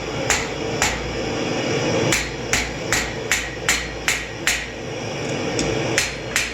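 Hammer striking a hot steel knife tip, forged from an old rasp, on an anvil to draw the tip down without forming fishlips. About a dozen ringing blows, each short and sharp. They pause for about a second near the start, then fall steadily at roughly two to three a second, over a steady low background hum.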